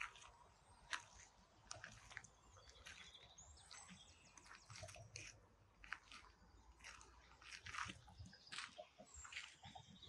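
Faint footsteps of someone walking a path, irregular at about two a second, with a few faint bird chirps.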